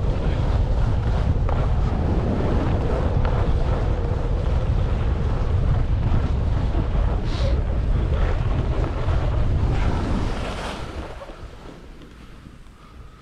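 Wind buffeting the microphone of a skier's action camera while skiing downhill, a steady low rush mixed with the hiss and scrape of skis on snow. The rush falls away sharply about ten seconds in.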